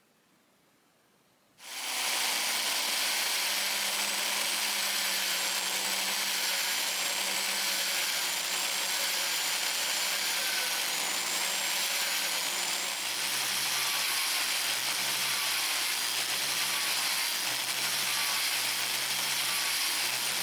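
Power tool spinning a brass wire brush through the internal threads of a hollow brass tool handle, starting abruptly about two seconds in and running steadily.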